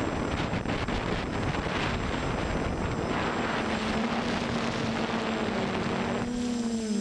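Armattan Rev2 Tilt quadcopter in flight, its four brushless motors and 10x5 propellers humming under a rush of wind noise. About halfway through the hum settles into a steady tone, and near the end the wind drops away while the motor pitch shifts.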